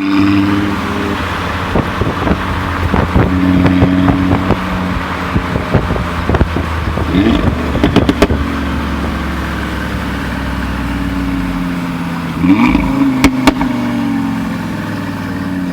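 Audi RS3 Sportback's turbocharged 2.5-litre five-cylinder engine running and revving, with repeated sharp exhaust crackles and pops in clusters, the loudest bangs about thirteen seconds in.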